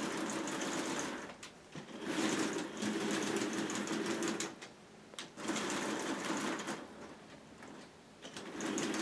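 Plastic K'nex crank and gear train clattering as a programming tape is wound by hand, in four runs of a second or two each with short pauses between. The tapes are being cranked back into step so that they stay synchronized.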